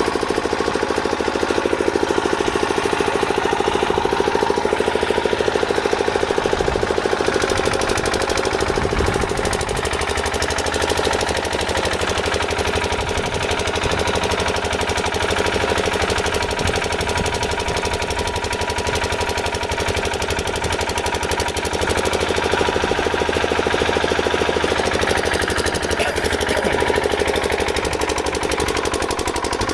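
A machine running steadily with a fast, even rattle, unbroken and at a constant level.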